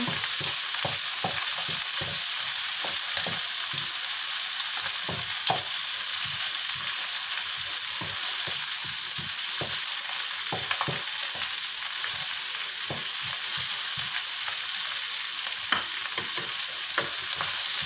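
Chopped shallots, garlic, chili and ginger sizzling in hot oil in a non-stick wok, stirred with a wooden spatula that scrapes and taps the pan at an irregular pace.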